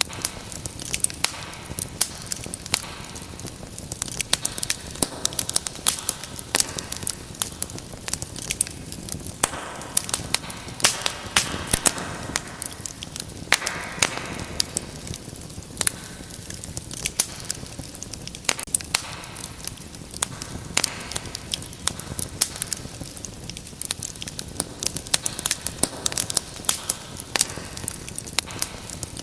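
Wood fire in a fireplace crackling, with frequent sharp irregular pops and snaps over a steady hiss of flames.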